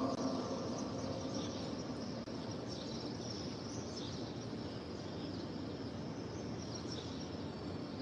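Steady, low background noise of the open mosque courtyard during a pause in the chanted Quran recitation, with a few faint high chirps.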